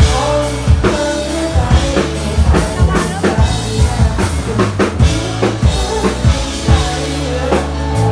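Live band music through a club PA: a drum kit keeps a steady beat of kick and snare over sustained bass notes.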